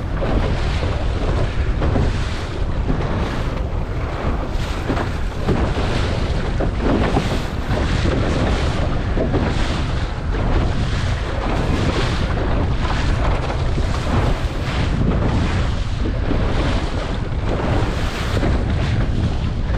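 Strong wind buffeting the microphone, with water rushing and splashing against a small sailing dinghy's hull in rough waves, in repeated irregular surges.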